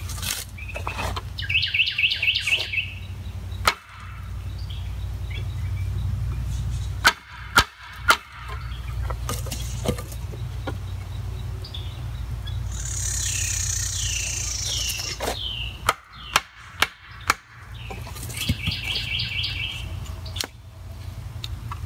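Knife being cross-batoned through a stick on a stump: sharp knocks of a wooden baton striking the knife's spine, three about seven seconds in and four more around sixteen seconds. Birds chirp in repeated trills between the strikes.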